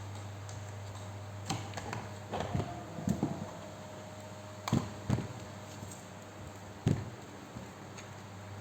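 Scattered sharp clicks and knocks of tools and parts being handled during the repair of a rotary hammer, about seven in all, the loudest near the end, over a steady low hum.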